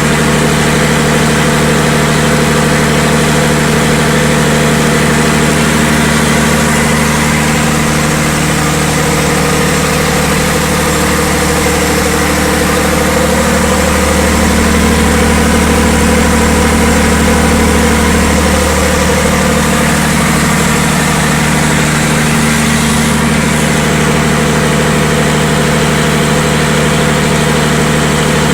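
Perkins diesel generator set (760 kVA) running at steady speed, a loud, even engine drone with a deep hum under it, swelling slightly about halfway through.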